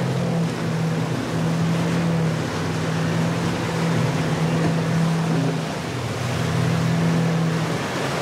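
Triple outboard motors of a center-console boat running at speed with a steady drone that shifts slightly in pitch, over the rush of water and spray from the hull.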